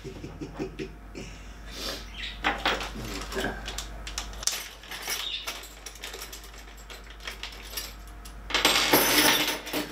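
Small metal parts from a printer kit being handled, with scattered light clicks and clinks, and a louder rustling stretch just before the end.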